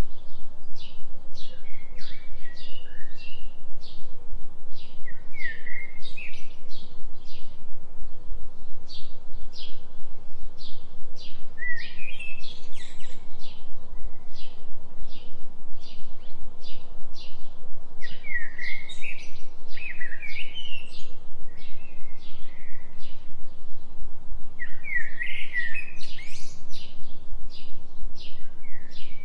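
Forest birdsong: short whistled bird phrases every few seconds over a steady run of quick high chirps, about two a second, with a low steady hum underneath.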